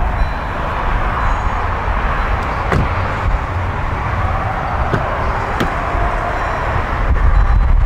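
A few sharp clicks from a 2017 Lifan X60's doors being handled, its front passenger door opened by the handle about halfway through, over a steady low outdoor rumble.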